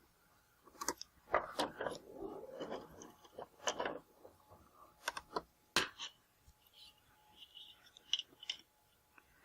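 Laptop screen parts being handled and fitted: a scatter of sharp plastic clicks and taps, with a stretch of rustling in the first few seconds.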